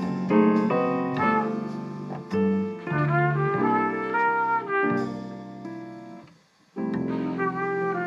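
Cornet playing a slow jazz ballad melody in sustained notes over piano accompaniment. The music fades out briefly about six seconds in, then comes back in.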